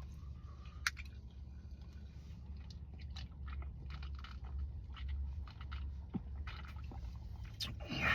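Close chewing and mouth sounds of someone eating smoked barbecue meat: scattered soft smacks and clicks over a low steady hum.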